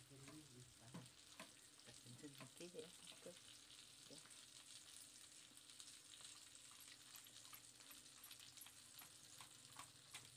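Near silence: a faint hiss with scattered soft clicks and rustles from hands mixing and tossing marinated fish pieces in a steel bowl.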